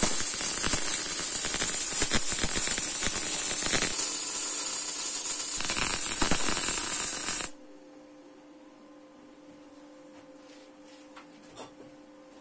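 Electric arc welding on steel: a dense, crackling sizzle that cuts off suddenly about seven and a half seconds in. A faint steady hum remains afterwards.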